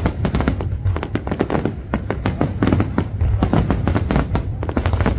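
Fireworks finale barrage: many aerial shells bursting in quick succession, several bangs a second, overlapping into a continuous low rumble.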